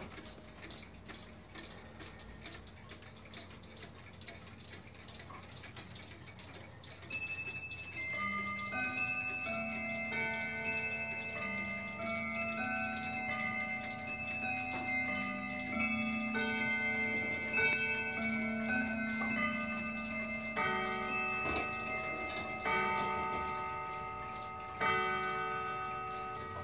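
Mechanical clocks ticking. About seven seconds in, a clock starts chiming a melody, its ringing notes overlapping as they ring on, with two louder strikes near the end.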